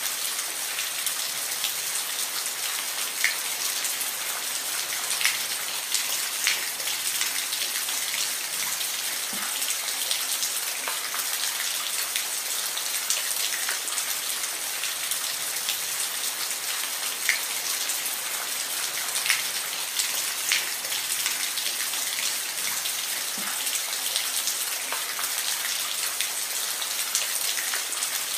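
Steady rain falling, an even hiss with scattered louder individual drops ticking on a surface.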